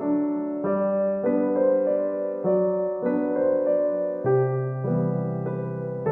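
Background music: a gentle electric piano melody played in single notes over held chords, changing about every half second.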